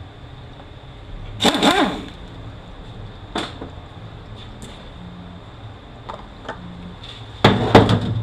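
Metal tools and transmission parts clanking and clattering on a workbench: a loud clatter about a second and a half in, a single sharp click a couple of seconds later, and another loud clatter near the end.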